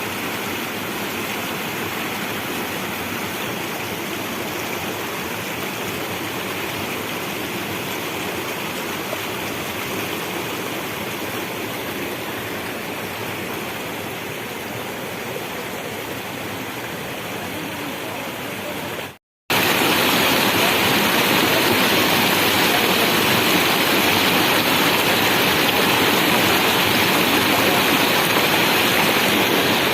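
Rushing water, a steady noise; it breaks off for a moment about two-thirds of the way through and comes back louder.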